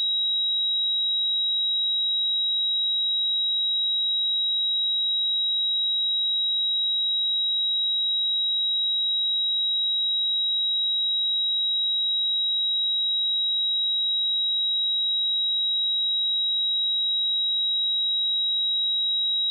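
A pure 3837 Hz sine test tone, one steady high-pitched pitch held at constant level without change.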